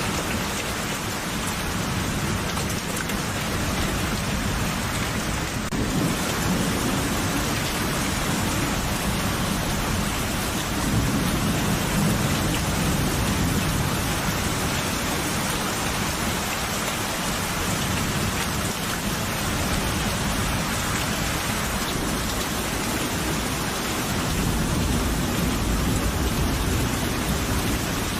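Steady rain falling, with low rolling thunder rumbling up several times: about six seconds in, around twelve seconds, and again near the end.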